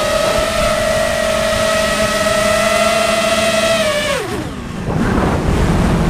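Drone's electric motors and propellers whining at a steady high pitch, heard from the onboard camera. About four seconds in, the whine drops sharply in pitch and dies away as the throttle is cut, and a rushing wind noise follows as the drone drops.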